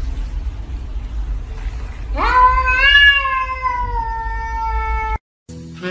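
Cat giving one long meow about two seconds in, sweeping up sharply at the start and then sliding slowly down in pitch for about three seconds before being cut off abruptly, over a steady low hum.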